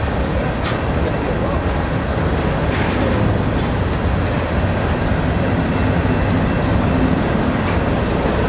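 Empty covered hopper cars of a grain train rolling past: a steady rumble of steel wheels on rail, with a few faint clicks.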